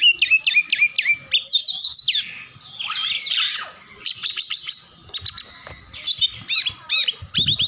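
Oriental magpie-robin (kacer) singing loudly: a varied, rough-voiced song of sharp chirps and rapid repeated trills, broken by short pauses.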